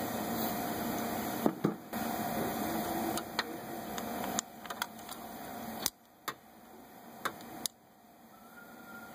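Scattered sharp clicks and light knocks of hand tools and engine parts being handled, as an ignition coil is set aside and a long socket extension is worked in toward a spark plug. Underneath is a hiss that swells and drops away suddenly several times.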